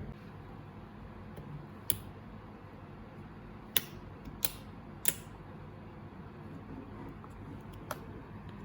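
A handful of single, sharp keycap clicks on a mechanical keyboard, about five spaced irregularly, the loudest three close together mid-way, over a steady low hum.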